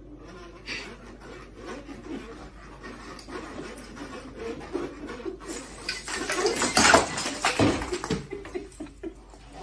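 A rider falls off a hoverboard into a decorated Christmas tree about six to seven seconds in: a sudden crash as the tree goes over, with baubles clattering across the floor.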